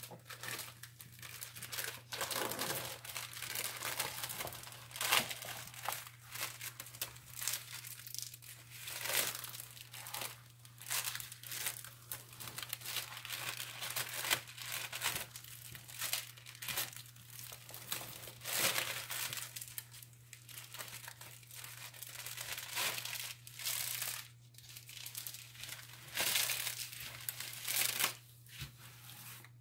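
Clear plastic release film on a diamond painting canvas crinkling and rustling in irregular bursts as hands rub and press it flat against the sticky canvas. A steady low hum runs underneath.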